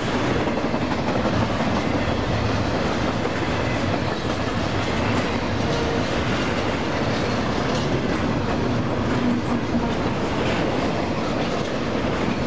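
Double-stack intermodal container train passing close by at speed: steady noise of the well cars' wheels running over the rails.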